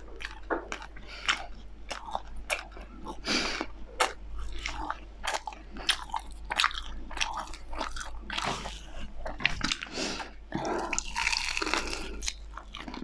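Close-miked eating: biting into and chewing a burnt chicken drumstick, with irregular crunches and wet mouth clicks, and a denser run of crunching a little past the middle.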